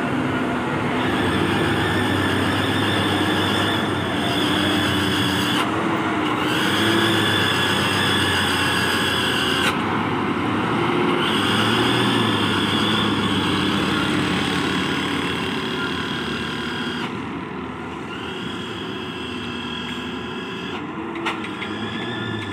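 Loaded Hino FM1J diesel trucks driving past close by on an uphill road. Their engines give a steady drone with a high whine above it, and the sound changes abruptly a few times.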